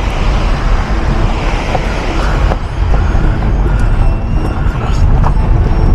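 Maruti Suzuki Ignis driving on a rough, broken mountain road: a steady low rumble of engine and tyres, with scattered knocks from the road surface.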